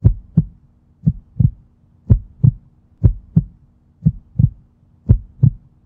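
Heartbeat sound effect: six double thumps in a steady lub-dub rhythm, about one a second, over a faint steady hum.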